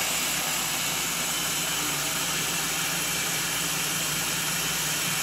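Electric mini food chopper running steadily with a low hum as its top-mounted motor is held down, the blade blending a thick cream cheese, sugar and lemon filling.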